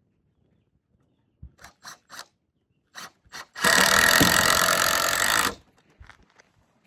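A handful of light knocks on wood, then a power tool runs into wood for about two seconds, steady and loud, and stops abruptly.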